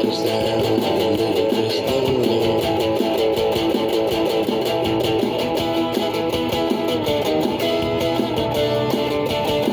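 Electric guitar playing an instrumental passage of quick, changing picked notes between sung verses, with no vocals.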